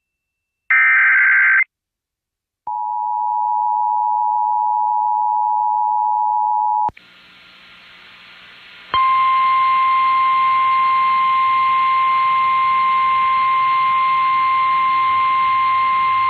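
Emergency Alert System activation for a flash flood warning, broadcast over AM radio. A one-second burst of SAME digital header data is followed by the two-tone EAS attention signal for about four seconds. Then come a couple of seconds of radio static, and the steady single-pitch NOAA Weather Radio warning tone starts about nine seconds in.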